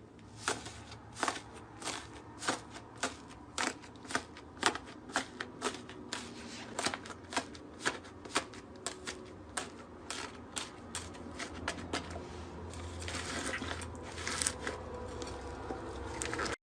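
Slime being handled and squeezed, giving a string of sharp pops and clicks, one to two a second, with a denser crackling stretch about three quarters of the way through.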